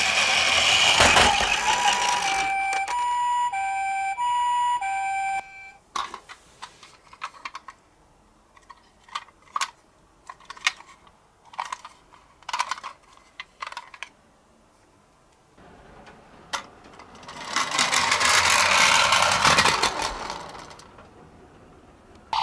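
A toy ambulance's electronic siren: a held tone over noise at the start, then the two-note 'pee-poh' wail switching between notes a little under twice a second, cutting off after about five seconds. Then come scattered clicks and taps, and a few seconds of rushing noise near the end.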